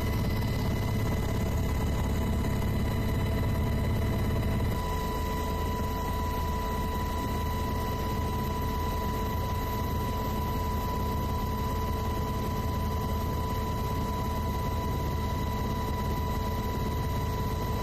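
Steady engine and rotor drone of a helicopter in flight, heard from on board: a low rumble with a constant high whine over it. The sound shifts slightly about five seconds in, the whine growing stronger.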